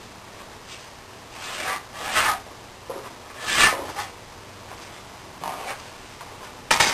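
Pencil and steel square rubbing on a plywood panel while layout lines are marked: a handful of short scraping strokes, the loudest about three and a half seconds in.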